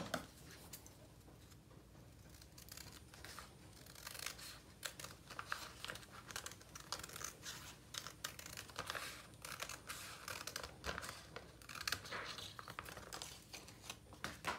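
Paper being cut with scissors and handled: quiet at first, then from about four seconds in a run of short crisp snips and rustling paper.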